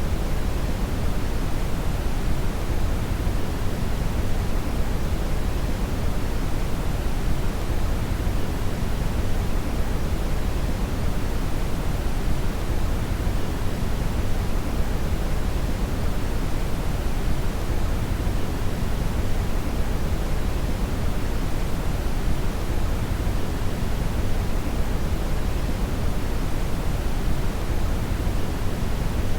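Steady brown noise: an even, unchanging rushing hiss weighted heavily toward the low end, with no rhythm or tones.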